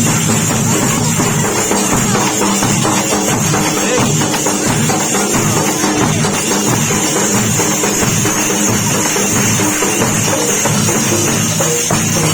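Drums played loudly in a dense, unbroken rhythm.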